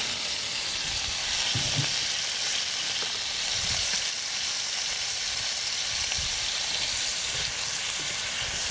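Sliced onions and tomato wedges sizzling steadily in hot oil in a pan, turned now and then with a plastic spatula that gives a few soft knocks.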